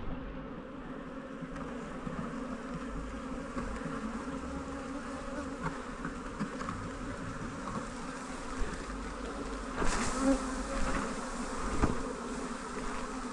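Honeybees buzzing steadily in the air, a shaken-out colony's bees flying about the hives. A few brief rustles or knocks near the end.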